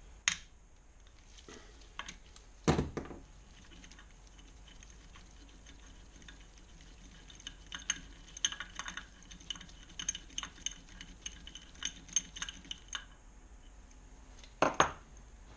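Socket and extension bar working the barrel retaining bolt out of a Kawasaki KLR 650 engine: a few sharp metal knocks, and about halfway through several seconds of quick, light metallic clicking, with another knock near the end.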